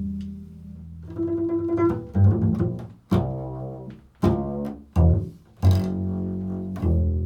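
Double bass played pizzicato in an improvised line: about seven plucked low notes, each ringing on and fading before the next.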